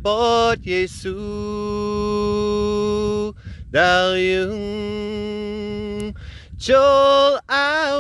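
A man singing a hymn solo and unaccompanied in Khmer, in slow phrases of long-held notes with short breaths between them.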